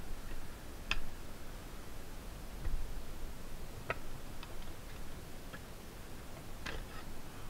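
Magnum hand-lever bench shear cutting sheet metal: a few sharp clicks a few seconds apart as the blade bites, the loudest near the end.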